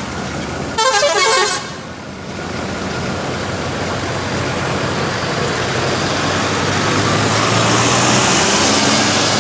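Indonesian bus 'telolet' musical multi-tone horn blowing a short wavering burst about a second in, followed by a rushing swell of bus engine and road noise that slowly grows louder.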